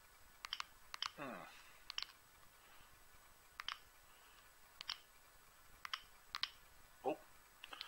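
Plastic keys and centre navigation button of a Gigaset C620A cordless handset being pressed while paging through its menus: a dozen or so sharp, separate clicks, several in quick pairs. About a second in there is a short falling hum from a man's voice.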